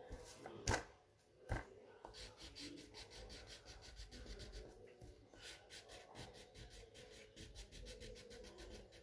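Colouring on paper: fast back-and-forth strokes of a colouring tool rubbing over the page, faint and rhythmic. Two sharp knocks in the first two seconds are the loudest sounds.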